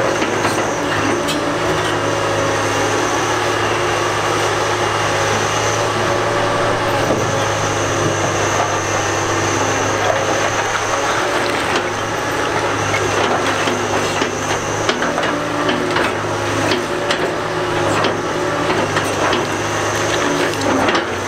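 Cat 245B excavator working broken rock: a steady heavy diesel drone with a thin high whine over it, and frequent irregular clatter and knocks of rock.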